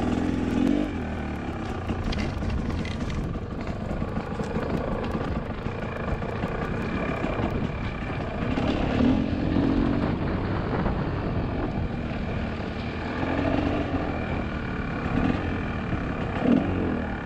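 Dirt bike engine running under way on a dirt trail, its note rising and falling as the throttle opens and closes.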